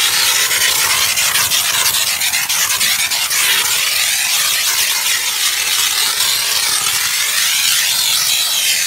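Steam jet hissing steadily from the trigger gun of a 12-bar LPG steam car washer, played over a car's wheel and sill. The dryness control has just been turned to its driest setting, so the steam is shifting from wet to dry.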